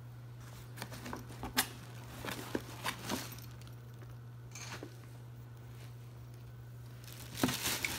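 Items being handled in a cardboard shipping box: scattered light taps, knocks and rustles, mostly in the first three seconds, with a couple more near the middle and a few near the end, over a steady low hum.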